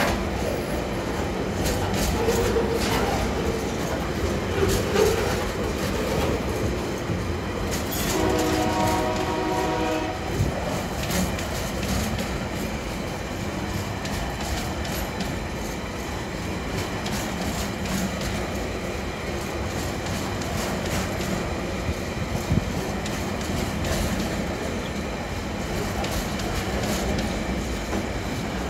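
TasRail container freight wagons rolling past, a steady rumble with wheels clacking over rail joints. About eight seconds in, a train horn sounds for roughly two seconds.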